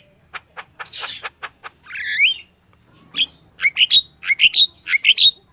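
Yellow-vented bulbul (crucukan) singing vigorously: a few short sharp notes, a rising whistled note about two seconds in, then from about three seconds a fast run of bubbly rising chirps, roughly three a second.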